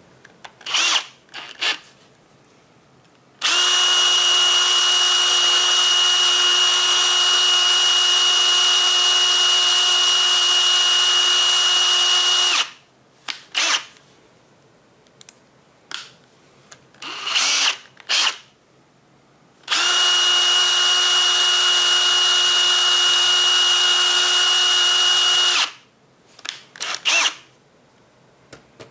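Small electric power tool running at a steady, constant speed twice, about nine seconds and then about six seconds, polishing the brass parts of a scooter carburettor. Short clicks and handling noises fall between the runs.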